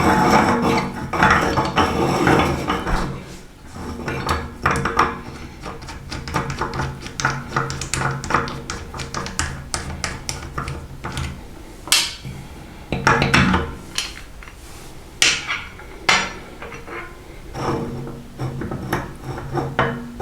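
Electric meat grinder running with a steady motor hum while hard food cracks and crunches through it in irregular sharp snaps.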